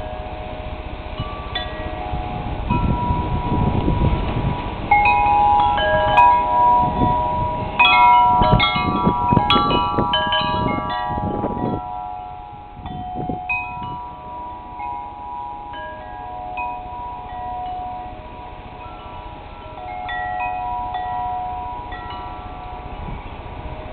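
Metal tube wind chimes ringing as they swing in the wind, many pitches overlapping and ringing on. The strikes come thick and loud for a few seconds about a third of the way in, then thin out to a few scattered notes. During the busiest stretch, gusts rumble on the microphone.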